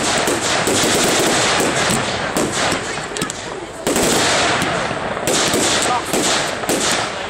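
Fireworks going off in rapid succession: a dense run of cracks and bangs, thinning briefly around the middle before picking up again.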